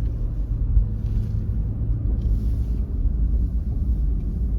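Steady low rumble inside the cabin of a 2021 Lexus GX460 driving on a snow-covered road: tyre and drivetrain drone from the SUV on Pirelli Scorpion All-Terrain Plus tyres, with faint brief hiss about a second in and again past two seconds.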